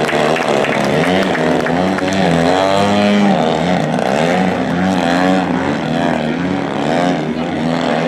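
Engines and propellers of two radio-controlled aerobatic planes flying together, their pitch rising and falling in overlapping waves as the throttles change and the planes pass.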